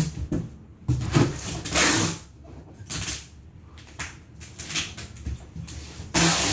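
Packing tape being pulled off the roll in three noisy strips and pressed onto a cardboard balikbayan box. The first strip, about a second in, is the longest, another comes near the middle, and one at the end. Scuffs and knocks of the box being handled come between the strips.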